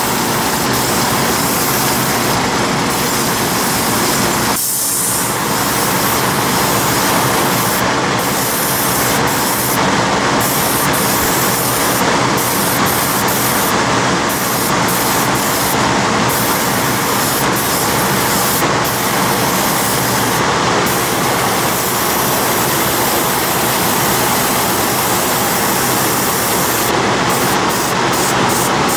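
Steady hiss of compressed air from an airbrush spraying paint, over a steady mechanical drone. The sound dips briefly about five seconds in.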